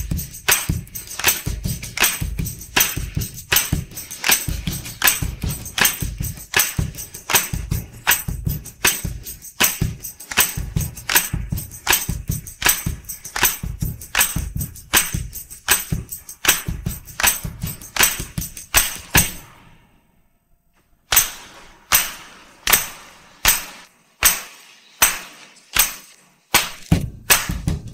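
Isolated drum-kit and tambourine track from a 1960s pop recording, with no other instruments: a steady beat of drum hits under bright tambourine jingles. About two-thirds of the way through it stops dead for a second, then comes back as single hits about one and a half a second, and the full beat returns near the end.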